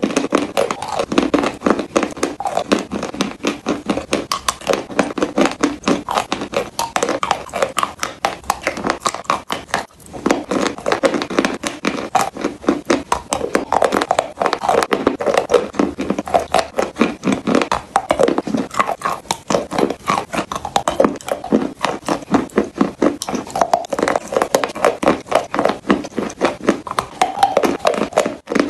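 Close-miked crunching and chewing of a block of pressed chalk: dense, crackly crunches several times a second, with a brief break about ten seconds in.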